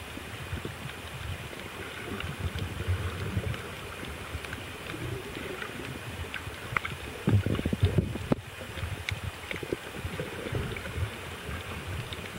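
Underwater sound picked up by a snorkeler's submerged camera: a low muffled rumble of moving water with many faint scattered clicks, and a few louder thuds about halfway through.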